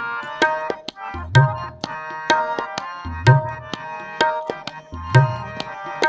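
Instrumental interlude of Sikh kirtan: tabla playing a steady rhythm, with a deep bass-drum stroke about every two seconds, under a sustained harmonium melody.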